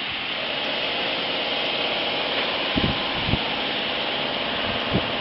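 Heat-shrink packaging machine running with a steady blowing hum from its tunnel fans, broken by a few dull thumps.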